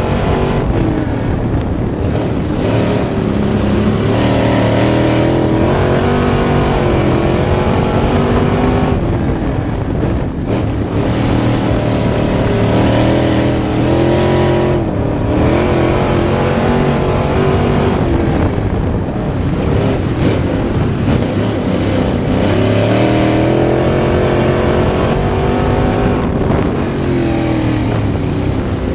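Dirt-track Sportsman race car's V8 engine at racing speed, heard from inside the cockpit. Its revs dip and climb back several times as it lifts and gets back on the throttle.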